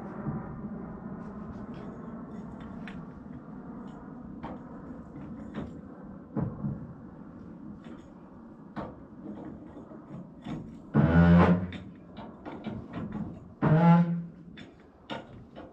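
A steady engine-like hum that fades away over the first few seconds, then scattered clicks and knocks, with two heavy thuds about eleven and fourteen seconds in.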